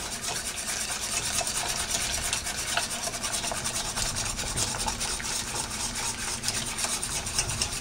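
A whisk scraping rapidly round the inside of a saucepan of hot flour-thickened gravy, in fast, steady strokes, beating out the flour lumps.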